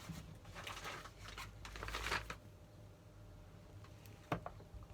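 Packaging being handled, rustling and crinkling for about two seconds, then a single light knock near the end.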